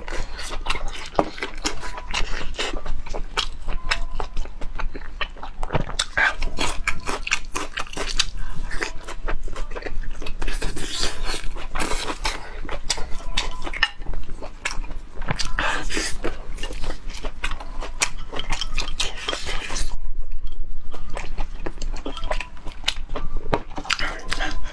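Close-miked chewing of braised pork: wet mouth smacks, lip clicks and bites, repeated throughout.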